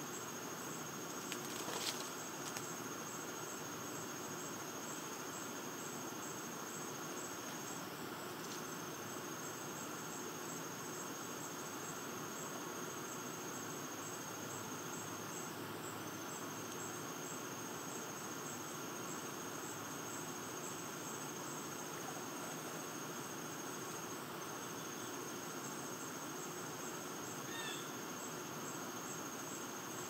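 Steady chorus of insects trilling: one continuous high-pitched trill that breaks off briefly about every eight seconds, over an even hiss of other insects. A few light clicks sound about two seconds in.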